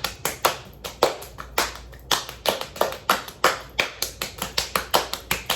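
Rapid hand claps and slaps of a clapping game, about four or five a second in an uneven rhythm.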